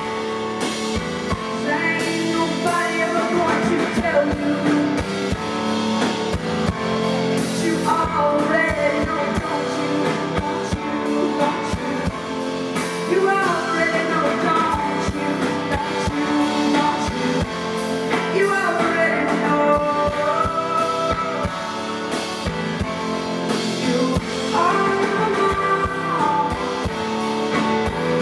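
Live band music: a woman singing at the microphone over a drum kit and keyboards.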